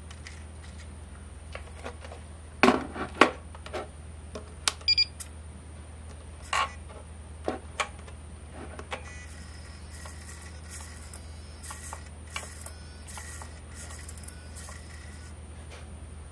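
Sharp clicks and knocks as a small RC truck and its radio transmitter are handled and switched on, with a short electronic beep about five seconds in. From about nine seconds a run of faint short buzzes follows, over a steady faint hum and a thin high whine.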